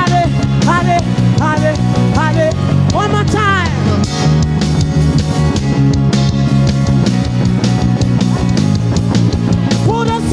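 Upbeat live praise-band music with drum kit, bass and guitar playing a steady groove, with short rising melodic phrases over the first four seconds.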